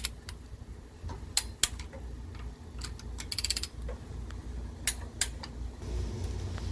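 Click-type torque wrench tightening cylinder head nuts to 30 lb-ft: a sharp click now and then as each nut reaches torque, with a quick run of ratcheting clicks about three and a half seconds in. A low steady hum runs underneath.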